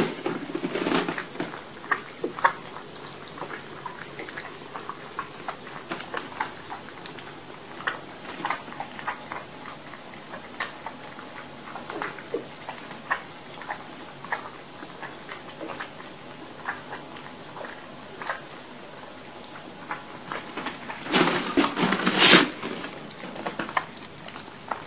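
Several kittens lapping milk from saucers: a run of small, quick wet clicks and ticks. Louder noisy bursts come just after the start and again about 21 seconds in.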